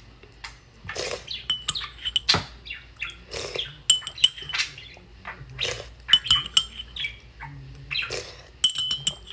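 Close-up mukbang eating: soup slurped off a metal spoon again and again, about once a second, with the spoon clinking against a ceramic bowl. Short high chirps from a pet bird come in a few times between the slurps.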